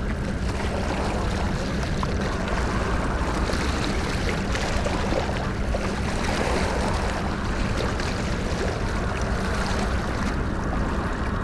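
A steady low motor hum over an even wash of noise, with no pauses or sudden sounds.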